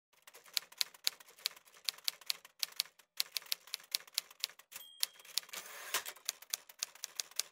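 Manual typewriter keys striking in quick, irregular runs with short pauses. A brief bell ding just before the middle, then the carriage slid back, then the key strikes resume.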